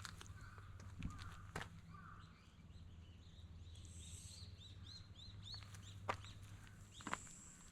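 A small bird chirping faintly: a quick run of about ten short, arched notes in the middle, with a few light clicks scattered around them over a steady low hum.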